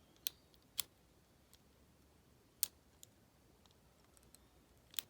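Lock pick and tension wrench working inside the keyway of an Abus 74/40 aluminium-bodied padlock: a handful of sharp, small metal clicks, irregularly spaced, with quiet between.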